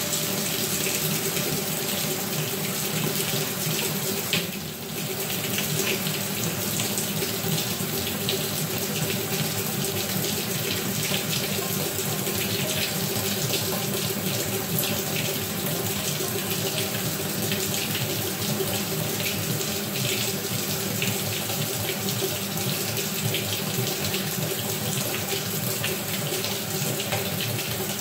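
Maytag top-load washer filling, with water pouring steadily into the tub. The sound dips briefly about four and a half seconds in.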